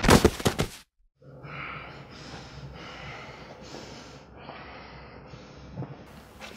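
Loud music and thuds cut off suddenly less than a second in. Then a man breathes heavily after a fight, with a steady run of short, hard breaths about every two-thirds of a second.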